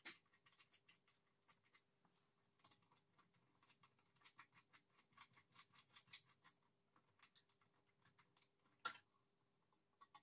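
Near silence with faint, scattered clicks and taps of hands and tools on the metal parts of an air compressor as it is worked on, with one sharper knock near the end. A faint steady hum sits underneath.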